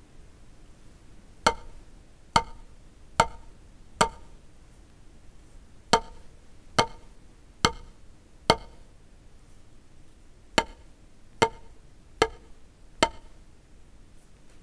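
Wooden drumsticks striking a drum practice pad in full strokes. There are twelve sharp taps just under a second apart, in three groups of four with short pauses between the groups.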